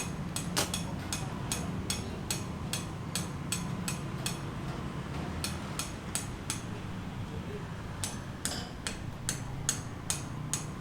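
Repeated sharp hammer strikes, about two to three a second, with a short pause midway, over a low steady background murmur.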